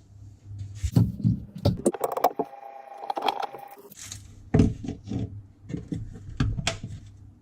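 Pots, plates and cutlery clinking and knocking in a dishwasher's racks as they are handled, an irregular run of clatters with a brief ringing clink near the middle, over a low steady hum.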